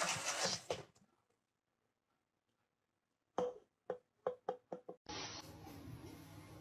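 A quickening run of about six sharp knocks, each with a brief ringing tone.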